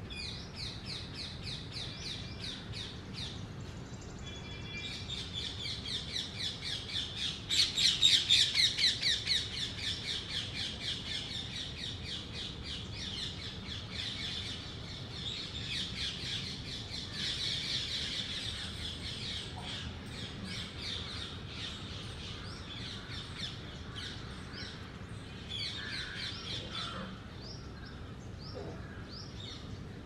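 Rapid runs of sharp, high chattering calls from small animals, several a second, loudest about eight seconds in and tailing off, with another short run near the end.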